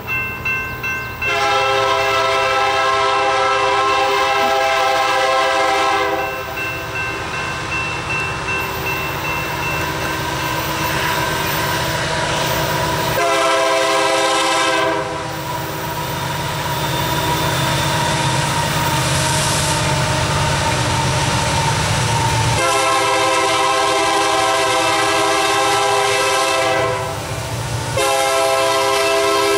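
The air horn of an approaching EMD SD9043MAC diesel locomotive sounds a chord in several long blasts, with the locomotive's engine rumbling low underneath.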